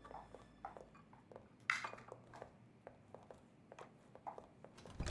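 Drinking glasses clinking on a serving tray as it is carried and set down on a table, with a sharper clink a little under two seconds in, amid light footsteps. A single thump comes near the end.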